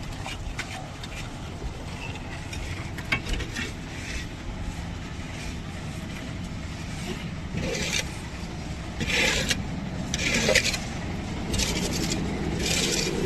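A run of five harsh scraping strokes about a second apart in the second half, over a steady low rumble, with a few sharp clicks earlier on.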